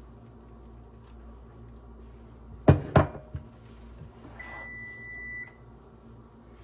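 Two sharp knocks a third of a second apart, then a kitchen appliance's electronic beep held for about a second.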